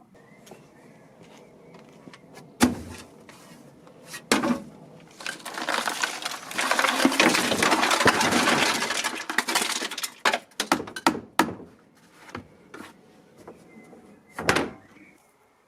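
Two sharp knocks, then about five seconds of dense clattering and rattling, then scattered clicks and one more knock near the end: hard parts being knocked and handled.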